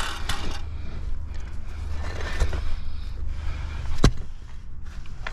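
A low, steady rumble with a few faint knocks, and one sharp knock about four seconds in.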